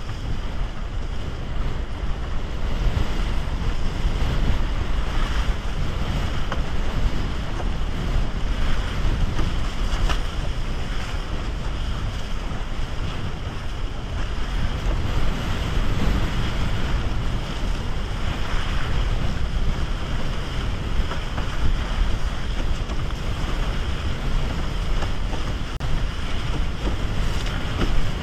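Wind buffeting the microphone over water rushing and splashing past a windsurf raceboard's hull as it sails fast in a strong breeze. The sound is dense and low, swelling and easing unevenly with the gusts and chop.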